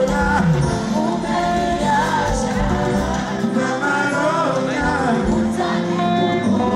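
Live band music with a lead vocal singing over it, heard at full concert volume.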